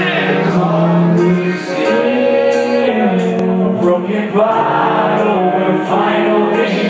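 Live band performing a song, with male voices singing long held notes together over the band, amplified through the PA.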